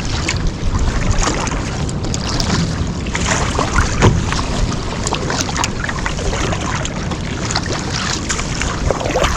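Sea water splashing and sloshing around a fishing kayak, with wind noise on the microphone; the sound is steady throughout, broken by many small irregular splashes.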